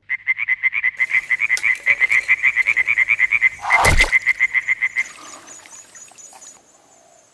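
A frog croaking in a fast, even series of short calls, about nine a second, which stops about five seconds in. A loud splash of water a little before four seconds in is the loudest sound.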